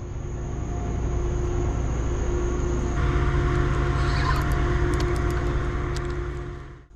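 Steady low mechanical hum from a docked river ferry's engine, with a broader rushing noise building over it about three seconds in. The sound drops away sharply near the end.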